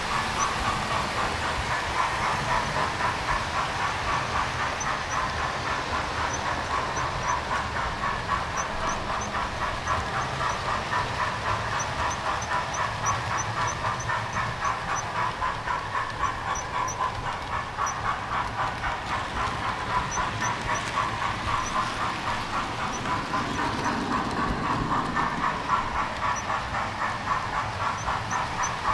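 Electric model train running steadily along the layout's track: an even whirring with rapid, regular clicking of the wheels on the rails.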